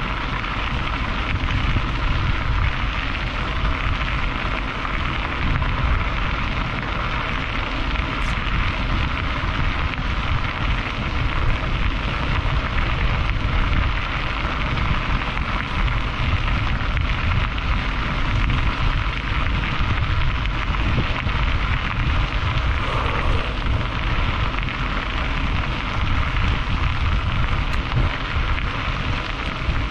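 Steady rushing wind and travel noise with a heavy low rumble, unbroken throughout, as of wind buffeting a microphone on the move.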